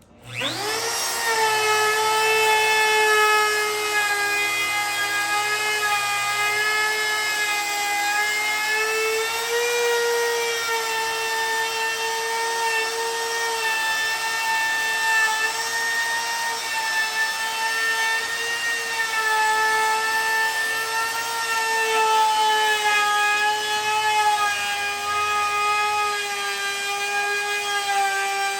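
Wood router spinning up and then running with a steady high whine while a 3/4 round-over bit cuts the edge of a cherry board, its pitch dipping slightly now and then under load.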